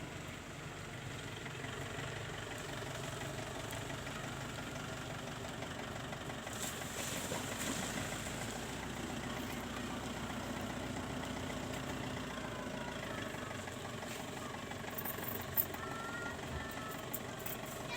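A steady engine drone, as of a running vehicle, with no change in pitch or level.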